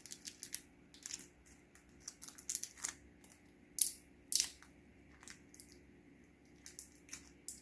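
Irregular small clicks, crackles and scrapes of hands and tools working inside an opened smartphone at its glued-in battery, loudest twice a little under four seconds in.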